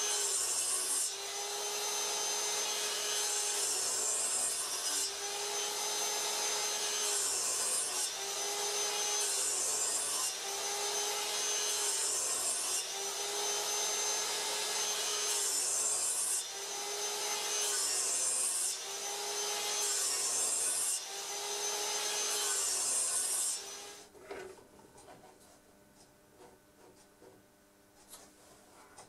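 Metabo sliding miter saw running with its motor whining steadily while the blade is brought down into a wooden disc again and again, about one cut every two seconds. The saw stops about 24 seconds in, leaving only faint handling ticks.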